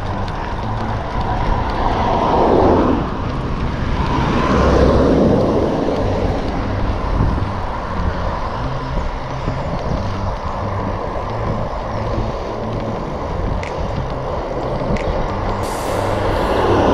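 Road traffic passing a cyclist: vehicles swish by about two seconds in, again around five seconds in, and near the end, each swell falling in pitch as it passes, over a steady rush of road noise.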